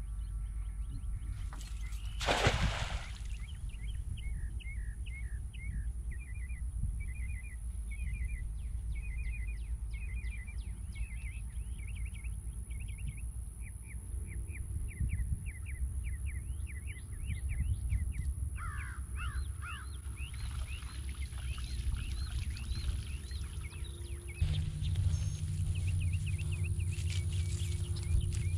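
Birds chirping in long runs of quick, repeated calls, over a steady low rumble. About two seconds in, a cast net splashes onto the water once.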